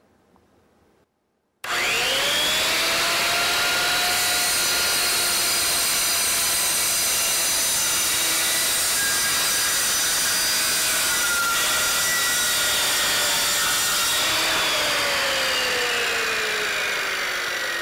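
Circular saw starting up about a second and a half in, its motor whine rising quickly to full speed, then running steadily through a long bevel cut in wood. Over the last few seconds its pitch falls steadily.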